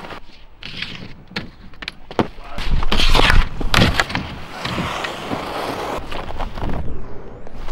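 Skis scraping over packed snow and sliding along a box rail in a snow park, with several sharp clacks and knocks. The loudest scraping comes about three seconds in.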